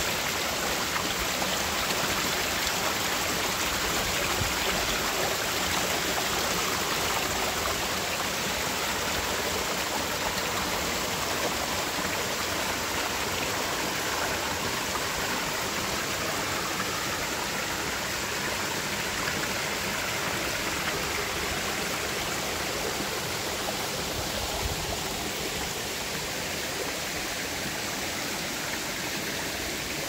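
Water cascading down a series of small rock waterfalls in a creek, a steady rush with no pauses, getting a little quieter toward the end.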